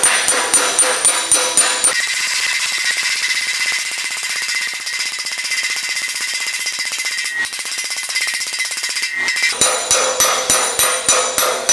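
Slapper spoon and hammer striking a sheet-metal fender over a dolly, planishing a TIG weld seam: even, ringing metal blows about three a second. For most of the middle they give way to a very rapid, even rattle of strikes with a steady ring. The slower blows return near the end.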